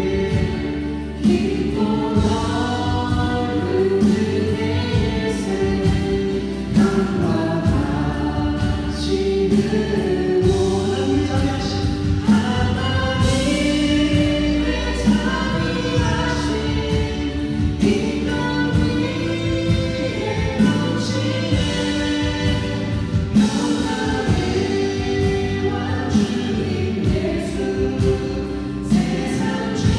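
A group of voices singing a Christian praise song with instrumental accompaniment and a steady beat.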